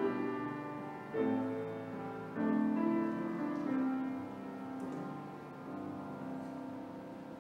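Slow piano music: sustained chords struck every second or so, fading away toward the end.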